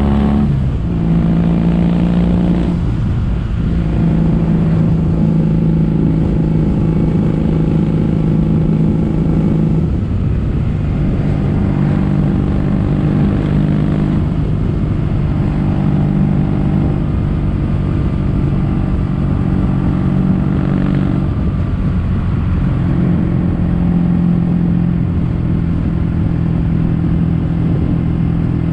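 Kawasaki W800's air-cooled parallel-twin exhaust through stainless-steel Cabton-style silencers, running steadily on the road. The note falls right at the start, then shifts in pitch a few more times, at about 3, 10 and 21 seconds in.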